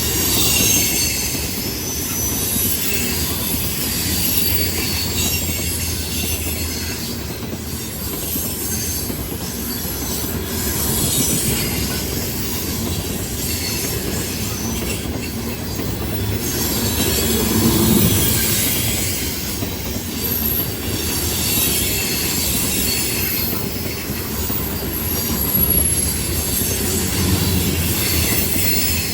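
Loaded grain train rolling past: the cars make a steady heavy rumble, and high-pitched wheel squeal comes and goes throughout.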